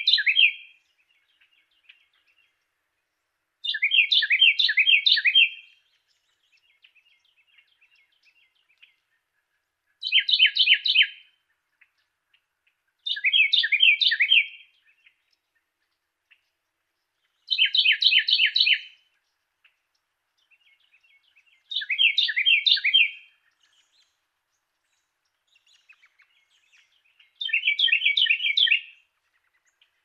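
Carolina wren singing. Its song is a quick run of one phrase repeated several times. A song is ending as the sound begins, then six more follow, each about one and a half to two seconds long and every three to five seconds, with faint soft notes in the gaps.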